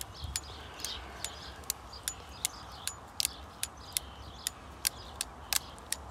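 Ratchet cable cutter clicking steadily, about two and a half clicks a second, as its handle is pumped and the jaws are ratcheted through a 16 mm three-core steel-wire-armoured cable.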